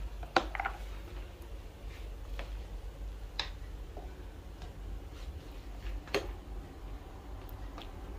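Scattered light clicks and taps of a metal serving spoon against a steel cooking pot and plastic containers as cooked khichuri is scooped out, about seven in all, over a low steady hum.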